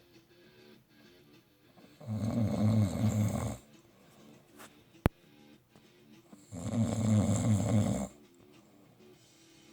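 Snoring: two long snores about four and a half seconds apart, one about two seconds in and one past the middle, with a single sharp click between them.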